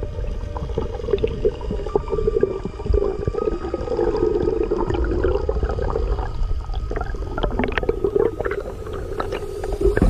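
Underwater sound picked up by a diving camera: a muffled watery rumble and wavering hum, with many sharp clicks and crackles throughout.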